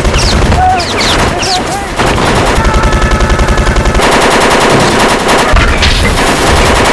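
Rotary-barrel minigun firing a long, rapid, continuous stream of shots.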